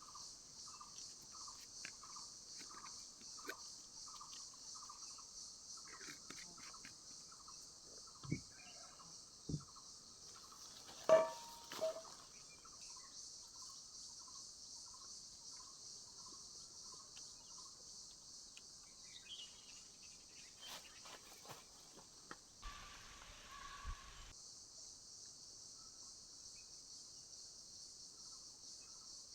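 Insects, crickets or similar, buzzing steadily at a high pitch, with a faint chirp repeating about two to three times a second. A few soft knocks and one brief sharper sound come near the middle.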